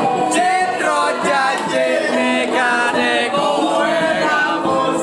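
Several voices singing together with music, like a group or choir singing.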